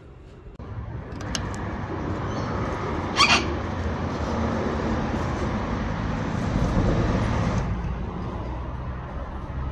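A short, harsh bird call about three seconds in, over a steady noise that sets in about half a second in and drops away near the end, with a low rumble underneath.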